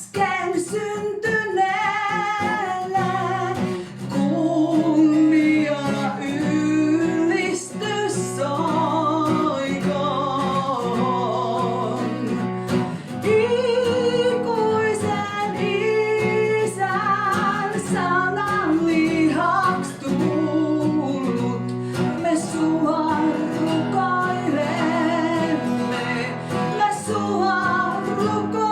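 A woman singing a Finnish Christmas song with vibrato, to a continuous instrumental accompaniment.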